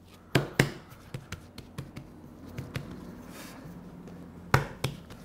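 Hands patting and pressing a ball of pasta dough into shape on a countertop: a string of sharp slaps, the loudest two in the first second and two more near the end.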